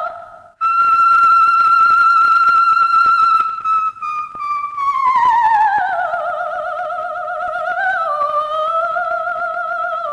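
Coloratura soprano singing a wordless high vocalise with wide vibrato. After a brief break she holds one long high note for about three seconds, then sinks in a slow descending line, with faint accompaniment underneath.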